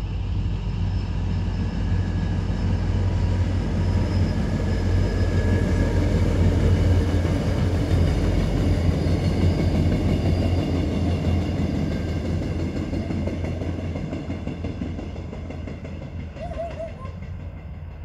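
Passenger train passing, its running noise building to a peak about halfway through and fading over the last few seconds. Frogs calling in short bursts near the end.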